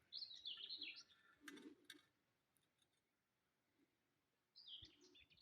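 Near silence with faint bird chirping, two short runs of high chirps near the start and near the end, and a few faint clicks in between.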